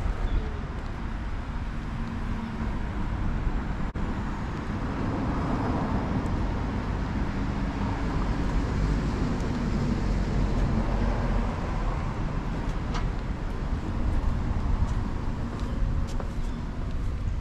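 Road traffic: cars going past, a steady tyre and engine noise that swells and fades as a vehicle passes through the middle.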